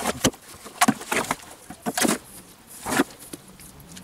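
Bricklaying work with trowel, mortar and bricks: a handful of sharp scrapes and knocks at irregular spacing.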